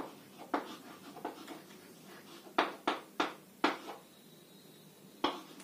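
Chalk writing on a blackboard: a series of short, sharp taps and strokes as letters and numbers are written, several in quick succession around the middle.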